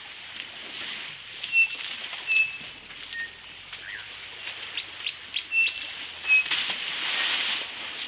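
Birds calling with short, high whistled notes and quick chirps, over a steady outdoor background. Near the end comes about a second of louder splashing water as an elephant calf wallows at the waterhole.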